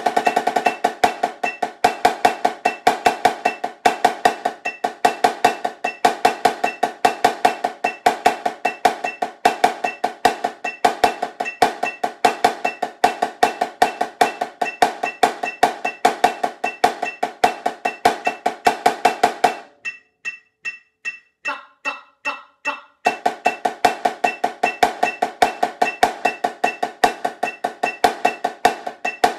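Marching snare drum played with sticks in a fast, steady stream of strokes over an even metronome click. About two-thirds of the way through the playing stops for roughly three seconds, leaving the click and a few soft taps, then starts again.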